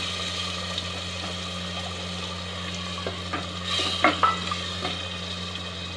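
Wooden spoon stirring a watery potato curry in a steel pot, with a few sharp knocks and scrapes against the pot about three to four seconds in, over a steady low hum.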